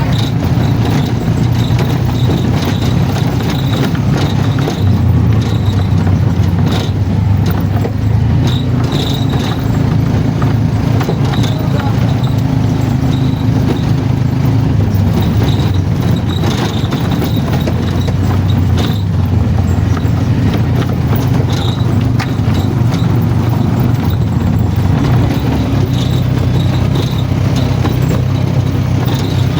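Motor vehicle engine running steadily with road noise; its pitch steps up and down a few times.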